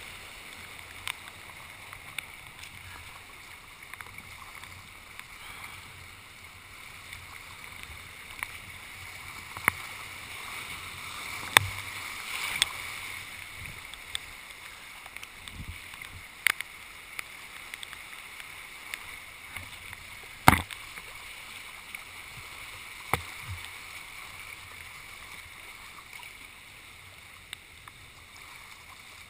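Whitewater rapids rushing around a kayak being paddled downriver, a steady wash of water that swells around the middle. A handful of sharp knocks and splashes cut through it, the loudest about two-thirds of the way in.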